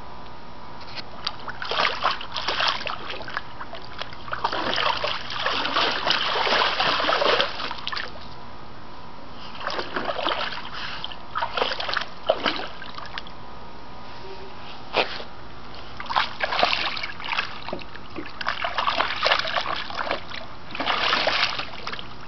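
Yellow Labrador splashing and paddling in a small pool, the splashing coming in bursts with short pauses between.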